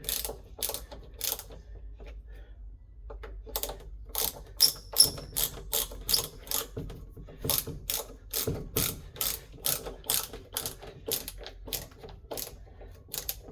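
Small hand ratcheting screwdriver clicking as it drives a hinge screw into a wood door, a steady run of clicks about two or three a second with a short pause about two seconds in.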